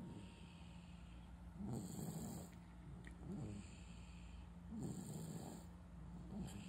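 Snoring in deep sleep: a snore about every three seconds, each under a second long, with a softer breath between them.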